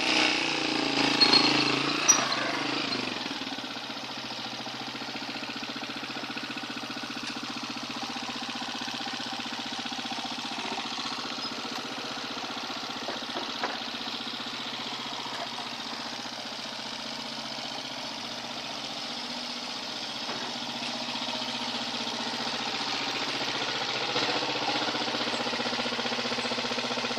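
Motorcycle engine running steadily, driving a lifting mechanism. It is louder for the first couple of seconds, with a few sharp clicks, then settles lower and slowly picks up again near the end.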